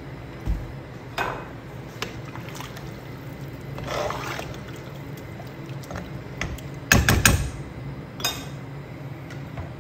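A spoon stirring a pot of broth with chopped grape leaves, the liquid sloshing, with scattered clicks and knocks of the utensil against the pot; the loudest is a quick cluster of knocks about seven seconds in.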